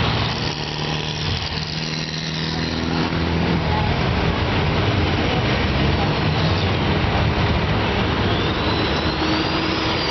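Motor vehicle engine running with steady road and traffic noise; a faint rising tone comes in near the end.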